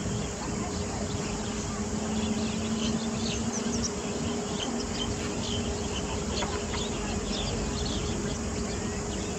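Steady outdoor background noise with a constant low hum and many short, faint high chirps scattered through it.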